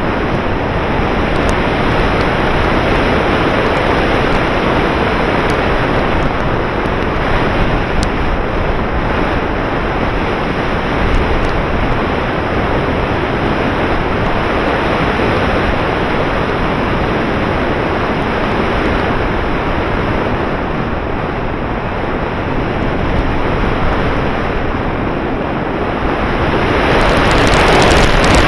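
Loud, steady wind rush buffeting the built-in microphone of a Runcam 6 action camera mounted on a flying RC model's wing. It grows louder near the end.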